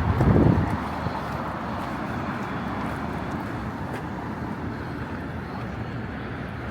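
Steady city ambience: a continuous hum of traffic, with a brief louder low rush in the first second.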